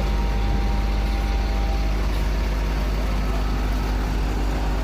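Heavy asphalt-paving equipment engine running steadily at constant speed, a low, even hum.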